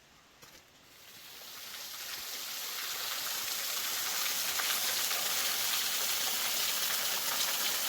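Small waterfall fed by an underground stream, splashing steadily; it swells from near quiet over the first couple of seconds and then holds.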